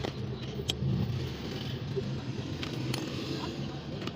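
Steady low mechanical hum with a few short, sharp clicks scattered through it.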